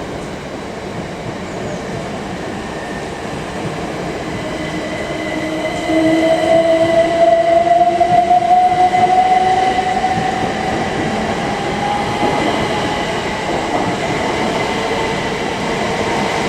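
Train running on the line with steady wheel-on-rail noise, getting louder about six seconds in, and a whine that rises slowly in pitch as it gathers speed.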